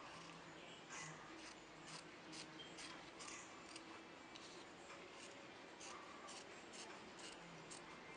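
Scissors cutting fabric: a faint, irregular run of short snips.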